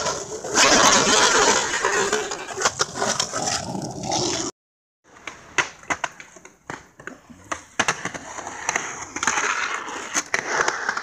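Skateboard wheels rolling on concrete, rough and loud. The sound cuts out for about half a second partway through, then comes back quieter, broken by many sharp clacks of the board and trucks.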